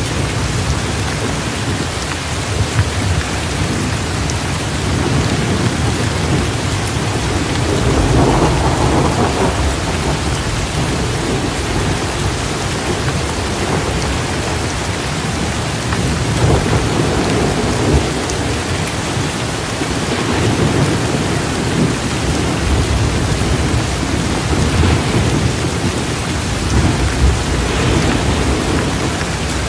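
Steady rain with low rumbles of thunder rolling in and swelling several times.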